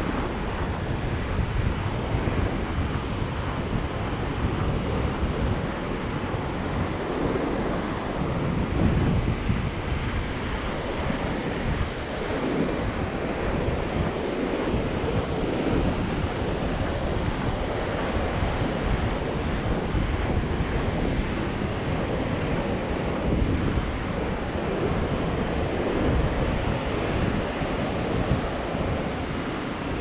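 Pacific surf washing steadily onto a sand and cobble beach, with wind buffeting the microphone in a low, gusty rumble.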